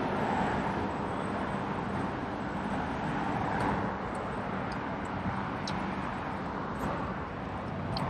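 Outdoor city street ambience: a steady wash of road traffic, with the low hum of passing car engines.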